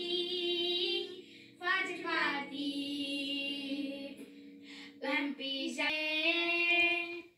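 A high, young-sounding female voice singing a slow melody in long held notes, with short pauses between phrases.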